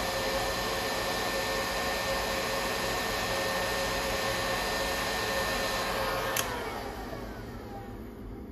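Electric heat gun blowing steadily with a whining hum while it shrinks heat-shrink tubing over a soldered wire. About six seconds in it is switched off with a click and its fan winds down, the whine falling in pitch.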